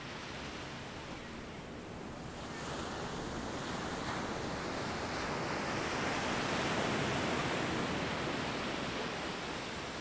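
Ocean surf: waves breaking and washing up onto a sandy beach, swelling to its loudest past the middle and easing slightly toward the end.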